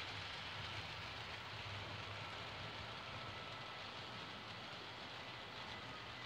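H0-scale Märklin model trains running on the layout's track: a steady rolling rumble with a faint thin whine.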